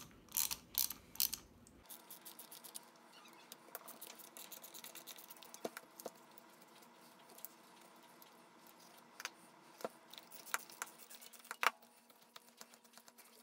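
Hand ratchet clicking as the long through-studs of a Hitachi starter are unscrewed with a 5/16 socket: a few louder clicks in the first two seconds, then faint rapid ticking with occasional sharper metal clicks.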